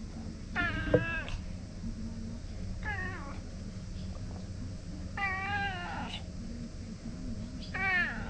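Ginger stray cat meowing four times, a call every two seconds or so. There is a sharp tap during the first meow.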